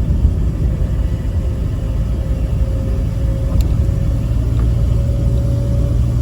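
Ford F-150 pickup accelerating with the gas pedal held down, a steady low drone under the road and engine sound. It is the unexplained noise that comes in when pressing the gas and holds at a steady, loud volume for as long as the pedal stays down.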